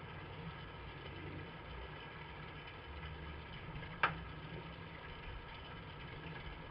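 Steady low hum, with one sharp click about four seconds in.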